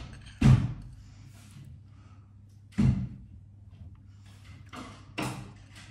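Three sharp knocks or bangs, about two and a half seconds apart, the first the loudest.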